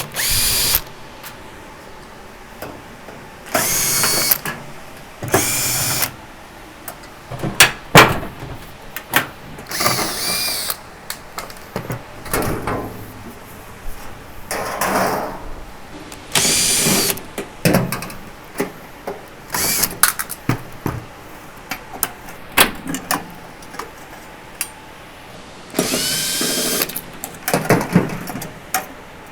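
Power drill/driver running in about eight short bursts, each with a whine that bends in pitch, as screws are backed out of a microwave's casing. Between bursts there are clicks and the knock of metal parts being handled.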